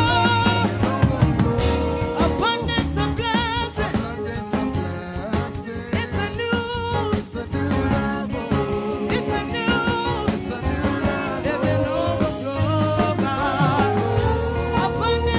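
Music: a voice singing over a band with bass and a drum kit.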